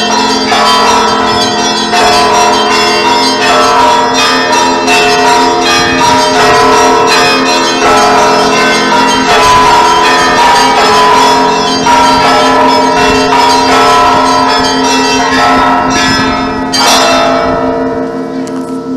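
Church bells of several different pitches rung together in a continuous peal, with strikes following one another about every half second. Near the end the striking stops and the bells ring on, fading with a pulsing low hum.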